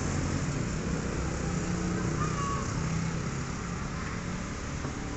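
Steady low rumble of an engine running nearby, with a brief thin high note about two seconds in.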